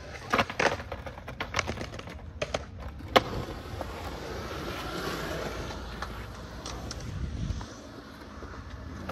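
Skateboard wheels rolling on concrete, with several sharp clacks of the board in the first three seconds, the loudest about three seconds in. A steady rolling rumble follows.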